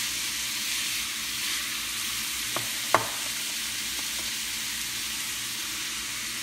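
Ground beef and minced garlic sizzling steadily in a nonstick frying pan while a wooden spoon stirs and breaks up the meat. Two sharp knocks come near the middle, the second louder.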